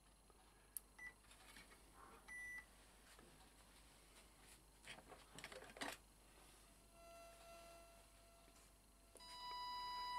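Faint clicks of wiring connectors being handled and pushed together, with two short high beeps in the first three seconds. Near the end, steady electronic tones come in as the model boat's electronic speed controller powers up.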